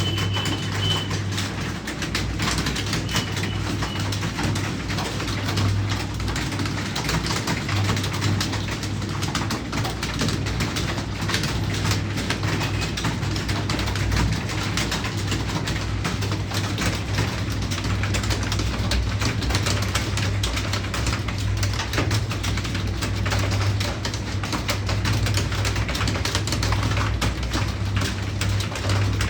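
Fast, continuous key clicks of a computer keyboard being typed on without pause, over a steady low hum.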